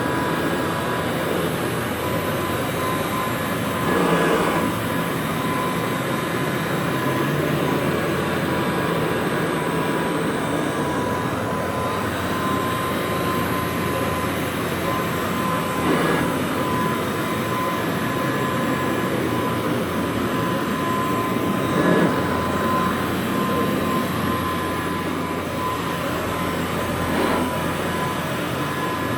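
Rebuilt 1957 Kirby Model 517 upright vacuum cleaner running steadily, with a steady whine and a few brief swells in loudness.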